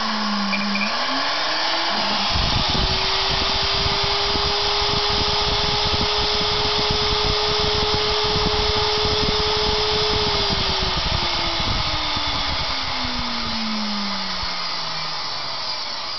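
Small 115-volt, 8000 RPM electric motor with a pulley on its shaft, running with a whine and a hum. About two seconds in the whine rises in pitch as the motor speeds up. It holds steady, then slides slowly down in pitch from about ten seconds in. It runs very smooth.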